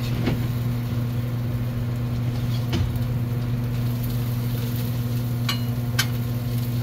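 Egg-and-vegetable toast patties and melting butter sizzling on a steel flat-top griddle, with a few sharp scrapes and taps of a metal spatula on the steel. A steady low hum runs underneath.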